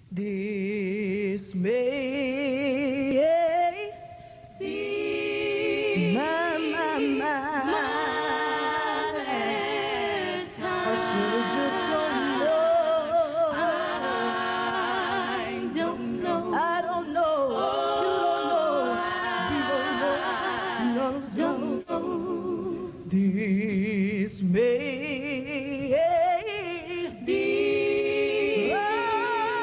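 Women's gospel group singing a cappella in quartet style, several voices in close harmony with a wide vibrato, with no instruments.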